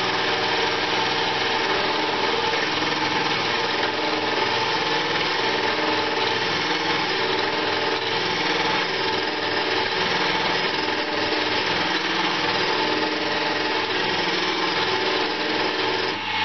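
Small wood lathe running steadily while a hand-held turning chisel cuts a spinning banksia seed pod, a continuous scraping hiss over the motor's hum.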